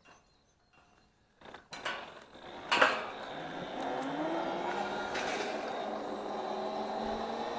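Near silence, then a few clicks with a sharp knock about three seconds in, followed by an electric scooter's motor whine that rises slowly in pitch as it pulls away.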